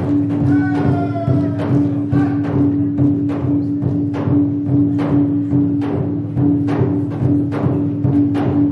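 Traditional dance music: a steady beat of about two strokes a second over a held low drone, with a short falling call about half a second in.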